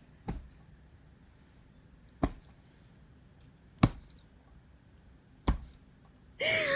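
Four short sharp clicks or taps, about a second and a half apart, over a quiet room. Near the end a man's voice cries out, falling in pitch.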